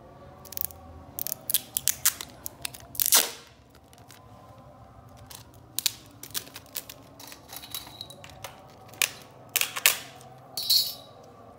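Hands handling a roll of clear packing tape: a scattered series of sharp clicks and taps, with a louder knock about three seconds in and a short rasp near the end.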